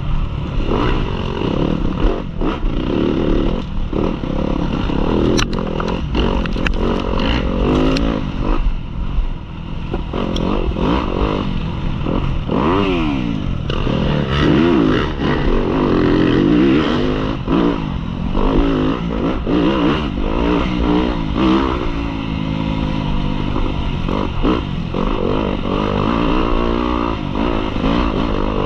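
Yamaha dirt bike engine revving up and down again and again as it is ridden hard, with scattered knocks and clatter from the bike.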